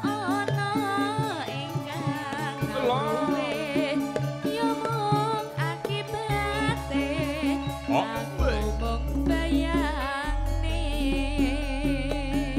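Javanese gamelan music for a tayub dance: steady ringing metallophone tones with a wavering, gliding melody line above them. Deep low notes come in about halfway through.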